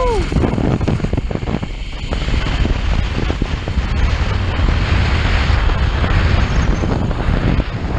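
Wind buffeting the microphone of a camera riding a zip line at speed, a steady loud rumble and hiss, with the zip-line trolley's pulleys running along the steel cable.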